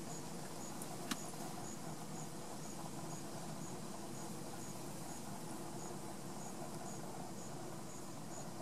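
An insect chirping steadily: a short, high-pitched chirp about twice a second, over faint steady background noise. One sharp click about a second in.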